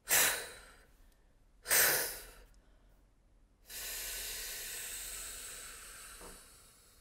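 A singer doing a breathing exercise: two short, sharp breaths, then a long, steady hiss of air let out slowly against resistance for about three seconds, fading near the end.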